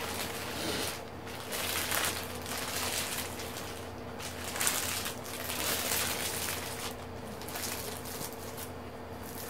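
Rustling and crinkling of a diamond-painting canvas and its plastic cover film as it is handled and smoothed, uneven and varying in loudness, over a faint steady hum.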